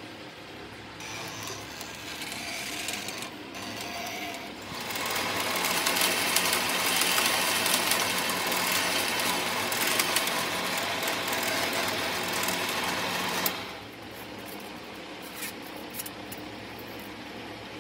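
Motorised coil-winding machine spinning a transformer bobbin, winding enamelled copper wire onto it: a steady machine whir that comes in quietly about a second in, gets much louder about five seconds in, and cuts off suddenly about thirteen seconds in.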